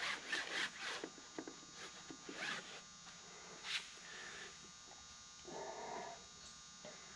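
A few quick rasping strokes of a pencil rubbed along glued fabric on an aircraft wing, most of them in the first second, then scattered rustling and handling noises.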